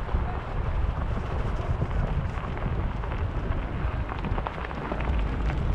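Bicycle rolling over a packed snow and slush path: wind rumbling on the microphone, with a steady fine crackle of the tyres on the snow.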